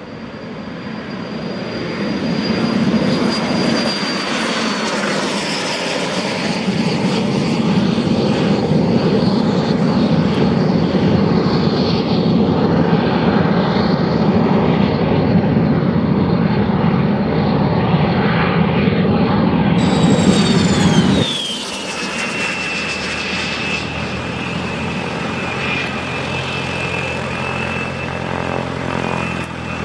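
Aero L-39 Albatros jet trainer's single AI-25TL turbofan at takeoff power: a high whine over a loud jet roar, the whine sliding down in pitch a few seconds in as the jet passes and climbs away. About two-thirds through, the roar drops abruptly and a fresh whine glides down and then holds steady.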